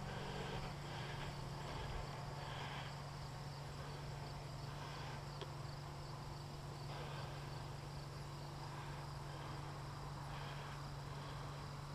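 Faint insects chirping in repeated pulses, each about half a second long, over a steady low hum.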